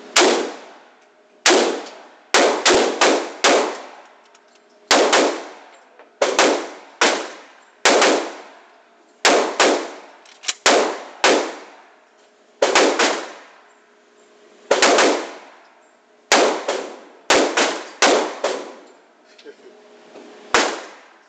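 An AK-47-pattern rifle fired repeatedly at an indoor range, about thirty shots in irregular strings: single shots and quick runs of two to four. Each shot is sharp, with an echoing tail from the range.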